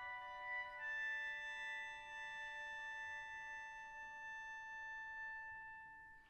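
Quiet chamber music: a few long, sustained notes held together, fading away near the end.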